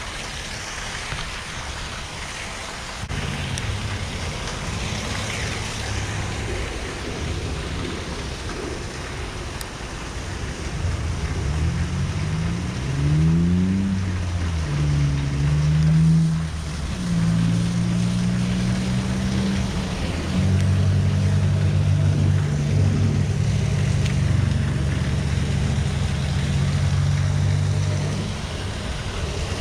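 Wind rushing on the microphone, with a low motor hum that rises in pitch about twelve seconds in and then holds steady.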